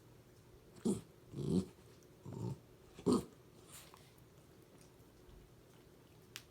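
Dog giving four short, low growls close together over about two seconds. A single sharp click follows near the end.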